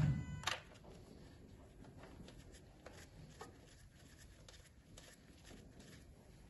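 A mechanic's gloved hands handling tools at the spark plug wells on top of a car engine: a low thump and a sharp click about half a second in, then faint scattered clicks and rustling.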